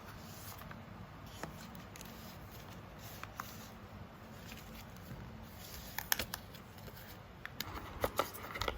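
Handling noises from an unboxing: scattered light taps and clicks, with a quick cluster about six seconds in and a busier run of clicks and rustles near the end.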